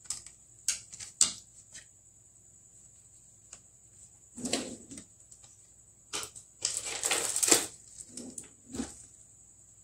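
Small hand tools and phone parts being handled on a repair bench: a few sharp clicks in the first two seconds, then bursts of scraping and rustling.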